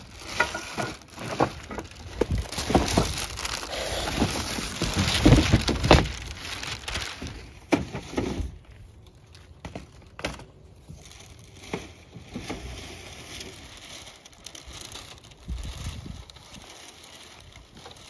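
Packing sheets and a cardboard box crinkling and rustling as flat-packed wooden chicken-coop panels are pulled out, with the panels knocking and clattering against each other. The crinkling is dense for the first half, then gives way to fewer, scattered knocks as the panels are set down.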